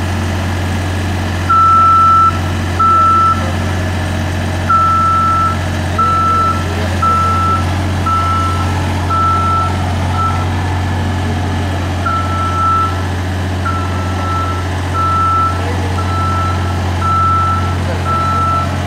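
JLG 450AJ articulating boom lift's motion alarm beeping about once a second, a single high tone with short gaps, as the boom moves. Under it, the lift's engine runs with a steady low hum.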